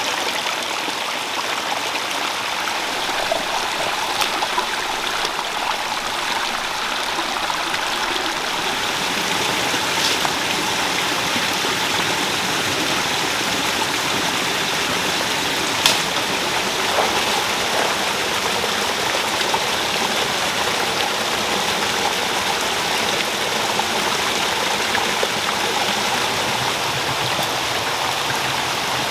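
Shallow, rocky forest stream running over stones in small cascades: a steady splashing water noise. A single sharp click cuts through it about halfway through.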